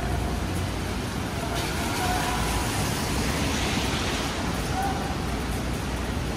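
Steady hiss of heavy rain falling on a city street, with traffic rumbling underneath.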